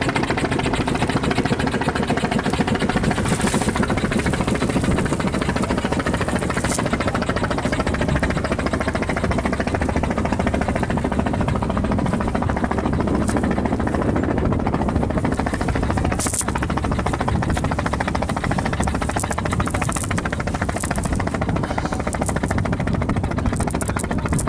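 A motor running steadily, with a fast even pulsing.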